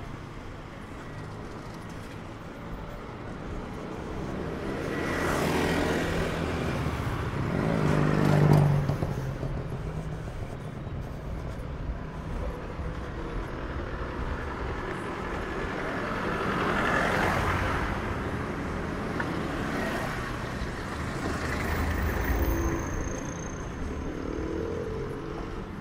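Street traffic: motor vehicles driving past one after another over a steady street background, the loudest passing about eight seconds in.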